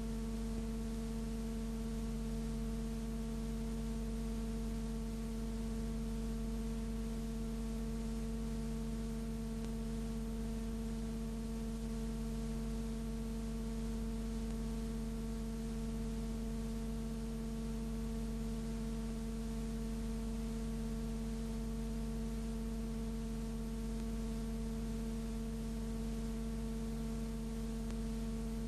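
Steady electrical hum made of several constant tones over a faint hiss, with no change at any point: noise on the soundtrack of a film transfer rather than any street sound.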